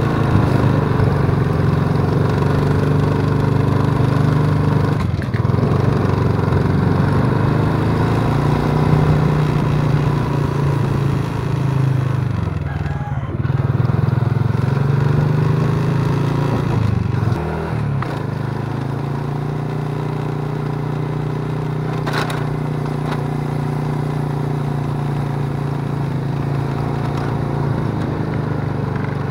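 Small motorcycle engine running steadily while riding, a continuous low hum with a few short knocks. The engine note dips and the level drops slightly about seventeen seconds in.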